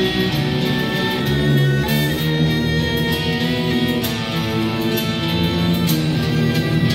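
Progressive metal music with guitars playing at a steady level.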